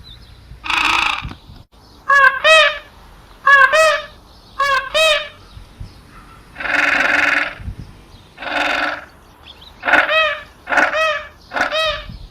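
Penguins calling in a loud series of about ten calls. Short wavering honks alternate with longer, harsher brays of nearly a second.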